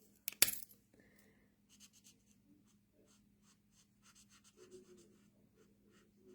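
Felt-tip blending marker strokes scratching on cardstock in short, faint repeated strokes while colouring. A sharp click or knock comes about half a second in.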